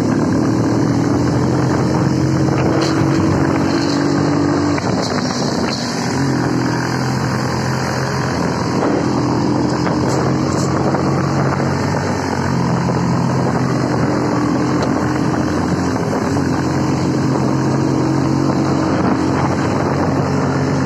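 Motorcycle engine running steadily at road speed, its note rising over the first few seconds and shifting pitch a couple of times with the throttle, over a constant rush of wind and road noise.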